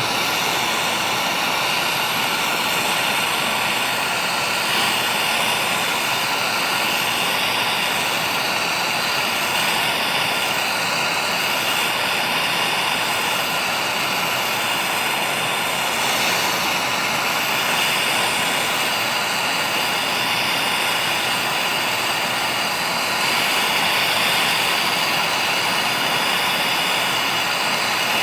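Acetylene torch flame burning steadily as it heats the transmission casing to loosen seized Torx bolts; it gets a little louder about 23 seconds in.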